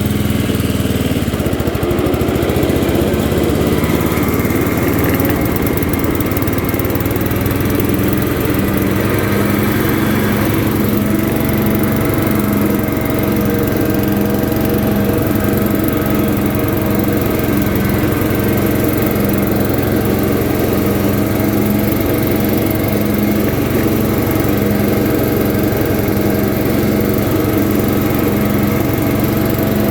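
Early-1990s MTD riding lawn mower running steadily with its blade deck engaged. About eight seconds in, a regular throb sets in, roughly once a second.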